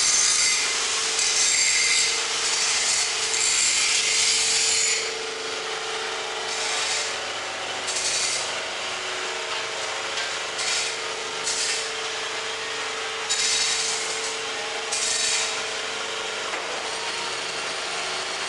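Stainless-steel mixing machine running: a steady motor hum under a harsh scraping, rasping noise that runs continuously for about five seconds, then comes and goes in short bursts.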